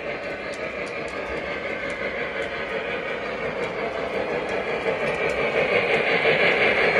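Model of a Union Pacific Big Boy steam locomotive rolling along the track, a steady mechanical running noise that grows louder near the end as the engine comes past close by.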